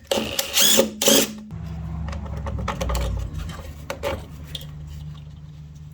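A few loud knocks and clatter as lawnmower parts are handled, then a steady low mechanical hum that slowly fades, with a couple of light clicks.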